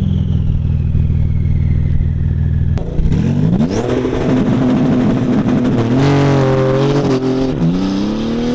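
Porsche 911 GT2 RS twin-turbo flat-six running steadily, then about three seconds in launching hard and pulling away. The pitch climbs, drops twice at quick upshifts, and climbs again.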